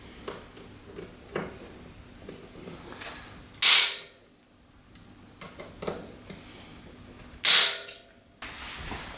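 Bicycle torque wrench set being handled: scattered light clicks and knocks, with two louder scraping sounds, each about half a second long, about three and a half and seven and a half seconds in.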